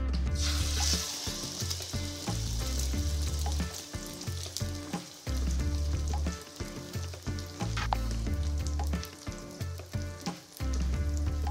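Spanish omelette mixture of egg and sliced potato sizzling as it is poured into a hot oiled non-stick pan and starts to fry. The sizzle is strongest in the first few seconds and then settles to a steady frying hiss.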